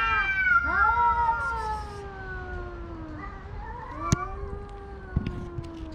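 Two male cats yowling at each other in a territorial standoff over a female: long, drawn-out, wavering howls, one following another, the middle one sinking slowly in pitch. This is threat caterwauling rather than actual fighting. Two short sharp clicks sound near the end.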